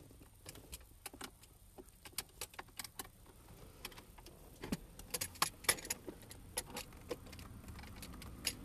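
Scattered light metallic clicks and taps of a long socket extension being worked into the back of a Toyota Prius steering wheel, feeling for the groove below the airbag's metal retaining clip, with a flurry of clicks about five seconds in.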